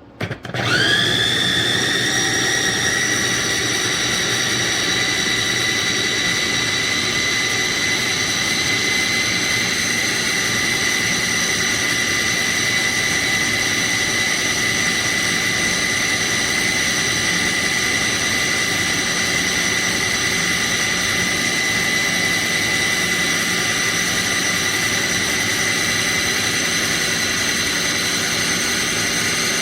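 GANIZA 450 W electric food chopper motor spinning up, its whine rising over the first second, then running at a steady high whine.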